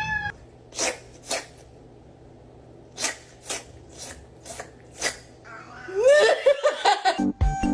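A cat sneezing repeatedly: about seven short, sharp sneezes over some four seconds, after a brief rising-and-falling meow at the start. Near the end comes a quick run of high wavering calls, then music with a beat begins.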